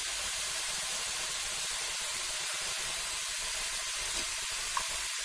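Chopped sickle senna leaves cooking in a hot kadai on a gas stove: a steady, even sizzling hiss.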